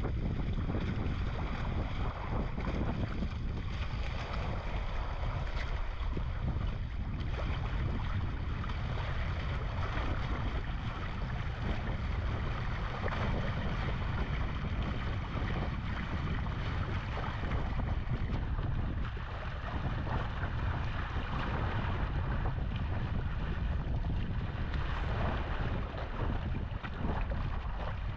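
Steady wind buffeting the microphone, mixed with water rushing past the hulls of an inflatable catamaran under sail.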